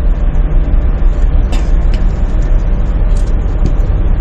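Wind buffeting the microphone on an open ship's deck: a loud, steady low rumble that wavers unevenly in strength.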